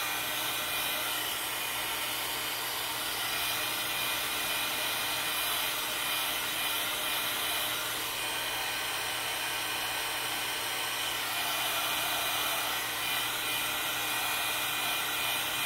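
Electric heat gun running steadily: its fan blows a continuous whirring hiss with a faint steady whine.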